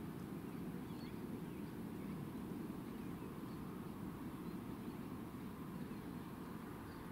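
Rural outdoor ambience: a steady low rumble of background noise with faint, scattered bird chirps over it.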